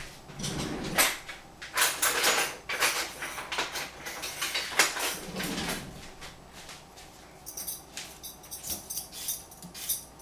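Kitchen drawers or cupboards being opened and utensils clattered while someone searches for a vegetable peeler, with irregular knocks and rattles. Near the end comes a quick run of sharp, rapid scraping clicks.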